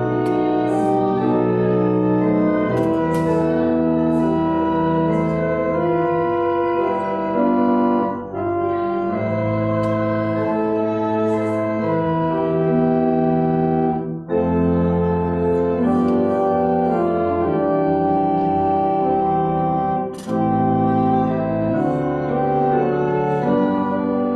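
Church organ playing slow held chords, with short breaks between phrases about every six seconds: offertory music while the altar is prepared for communion.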